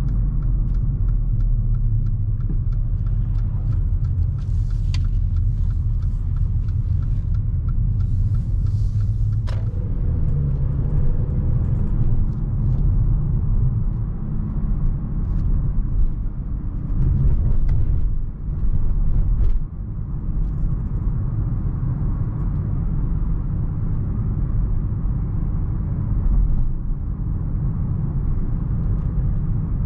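2015 Mercedes-Benz GLA250's 2.0-litre turbocharged four-cylinder petrol engine running while the car drives, over a steady road and tyre rumble. The engine note changes abruptly about ten seconds in.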